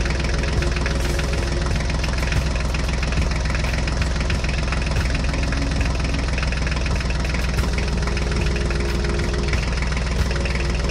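Diesel tractor engine running steadily with a rapid knocking.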